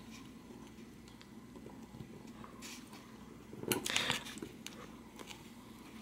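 Faint small metal clicks, then a short cluster of sharper scraping clicks about four seconds in: the pawl being slid into a ratchet head past the spring-loaded detent plunger, which is held down with a spring-steel tool.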